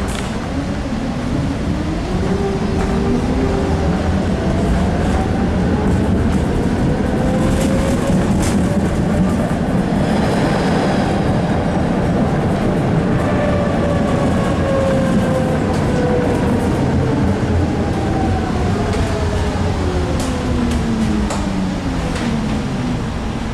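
Tram running on rails, heard from inside the car: the traction motor whine rises in pitch as the tram picks up speed, then falls again as it slows, over a steady rumble of wheels on track with a few clicks from the rails.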